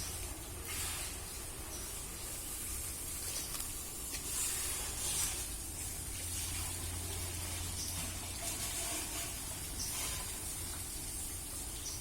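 Steady outdoor background noise: a high hiss over a low rumble, with a few faint clicks.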